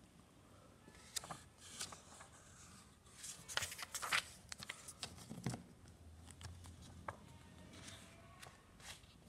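Paper pages of a diary being flipped and thumbed through: soft rustles and flicks, with a quick run of page flicks about four seconds in.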